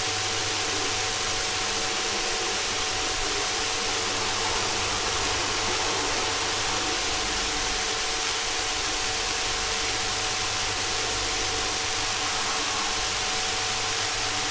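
Steady hiss with a faint low hum and a thin high whine, with no distinct events.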